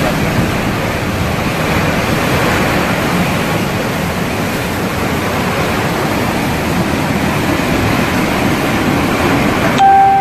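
Hurricane wind and driving rain: a loud, steady rush of noise. Near the end it changes abruptly and a brief steady tone sounds for under a second.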